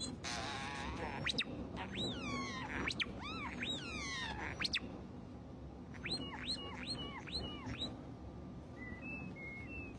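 A European starling mimicking R2-D2's droid sounds: rapid whistled pitch sweeps and warbles, then a run of about six quick rising-and-falling chirps, and short steady whistles near the end.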